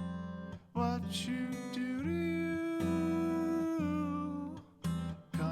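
Acoustic guitar strumming chords and letting them ring as the song's instrumental close, with short breaks between the chords.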